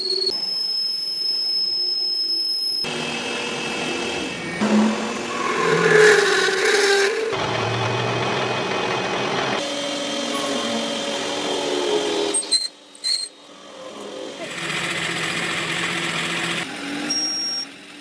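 Workshop machinery and power-tool noise in a string of short clips, each cut off abruptly every few seconds, some carrying a steady high whine.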